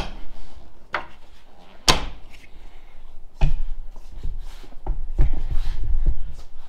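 Curtis tractor cab door on a John Deere 2038R being worked at its latch handle: sharp clacks of the latch and door, the loudest about two seconds in, then a run of lower knocks and rattles from the door and cab panel.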